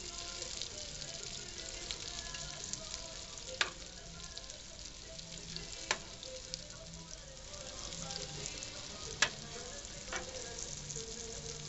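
Strips of liver sizzling in hot oil and butter in a nonstick frying pan, with four sharp clicks of metal tongs as pieces are lifted out.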